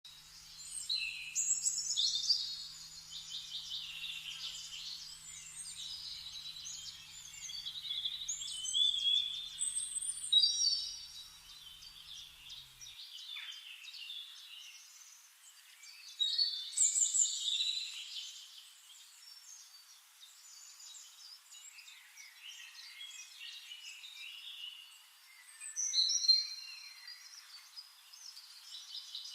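Forest birdsong: several songbirds singing and chirping over one another, with louder bursts of song every few seconds.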